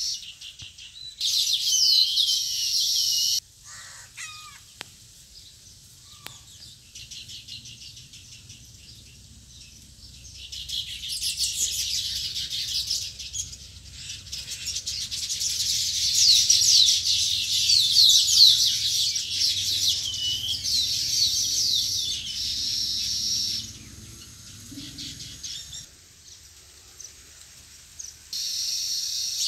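A colony of baya weavers chattering: a dense chorus of rapid, high chirps that comes in bursts and is fullest through the middle.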